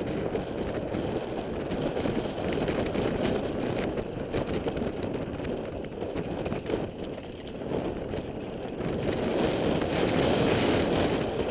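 2006 Mongoose Black Diamond mountain bike descending a dirt trail: tyres rolling over dirt and stones, with steady rattles and clicks from the bike and wind buffeting the helmet microphone, a little louder near the end.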